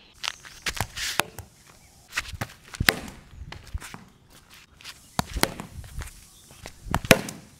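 Irregular sharp knocks and scuffing footsteps on concrete: a synthetic cricket ball bouncing and being struck with a hard plastic cricket bat as the batter moves about. Two knocks stand out, about three seconds in and near the end.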